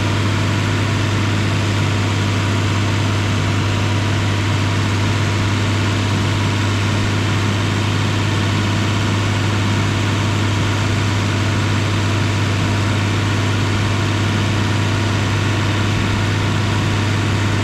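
Nissan Frontier pickup's engine running steadily with a strong low hum, while trapped air is bled from its cooling system through a funnel on the radiator fill; the air in the system is what kept the heater from blowing hot.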